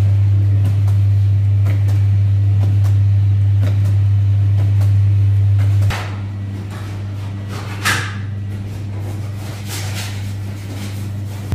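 A loud, steady low machine hum that drops sharply about six seconds in, with light clicks and knocks throughout and a few short scraping sweeps in the second half, the loudest about eight seconds in: a working sangak bakery, bakers handling dough and tools at the stone-bed oven.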